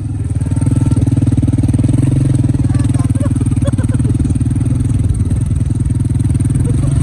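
Motorcycle engine running steadily, its exhaust pulsing at a fast even rate, a little louder from about a second in.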